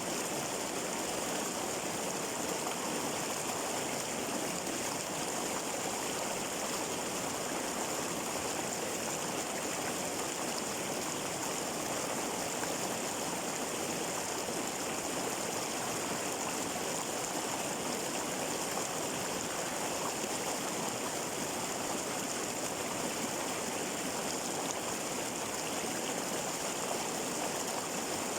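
Flowing water running steadily, an even, unbroken rush with no changes.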